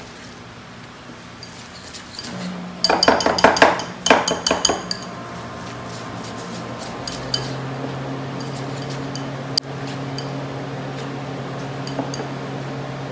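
Wire whisk mixing egg yolk and flour batter in a glass bowl. The wires clink rapidly against the glass for about two seconds, starting around three seconds in, then go on with lighter, scattered taps. A steady low hum runs underneath.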